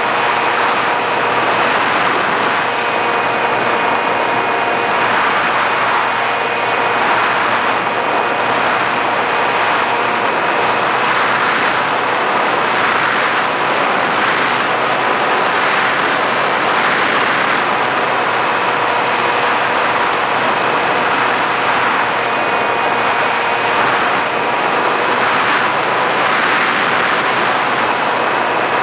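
Electric motor and pusher propeller of an FX-61 Phantom flying wing in flight, heard from its onboard camera: a steady whine over rushing wind that swells and fades every few seconds.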